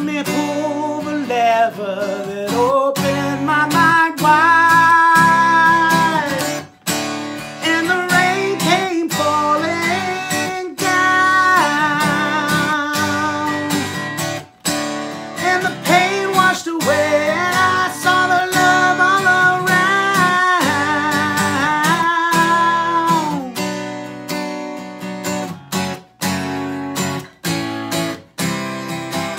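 A man singing an acoustic rock song over a strummed Takamine acoustic guitar, holding long, wavering notes.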